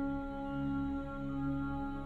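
Calm ambient background music of sustained, ringing singing-bowl-like tones that swell and fade slowly.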